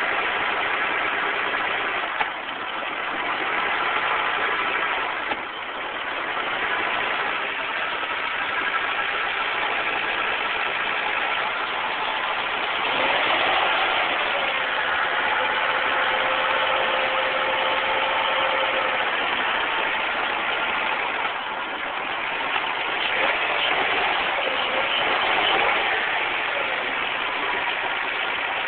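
Carbureted engine running at idle. About halfway through a whine glides up in pitch and holds for a few seconds, and the pitch wavers again a few seconds before the end.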